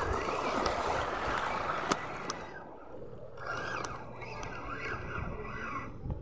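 Wind on the microphone and sea water washing against shore rocks, then from about halfway in the faint whir of a spinning reel being wound in.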